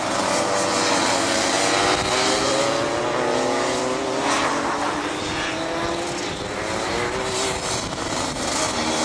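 Several racing kart engines buzzing as the karts lap the circuit, overlapping pitches rising and falling as they brake and accelerate through the corners.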